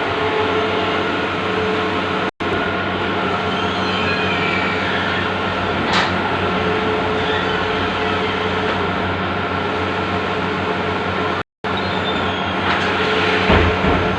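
Bluewin large-format outdoor banner printer running: a steady mechanical whir and hum, with a couple of short clicks.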